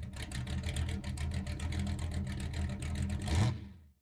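A vehicle engine running with a steady low hum and a rapid, even ticking, fading out just before the end.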